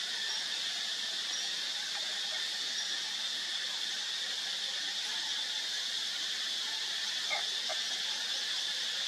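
Steady high-pitched drone of insects, unbroken and even in level.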